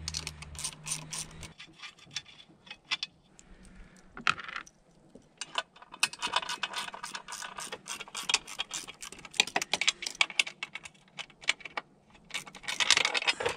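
Hand socket ratchet clicking in quick runs with short pauses, backing out the carburetor mounting bolts on a two-stroke outboard motor.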